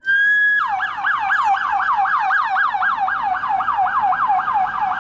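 Electronic ambulance siren: one steady tone for about half a second, then a fast yelp of falling pitch sweeps, about four or five a second.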